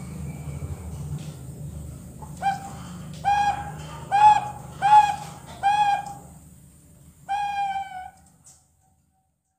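Juvenile zebra doves (perkutut bangkok), about two months old, cooing. A run of about five quick coos comes roughly a second apart, then one more after a short pause: the halting song of a young bird still learning to sing.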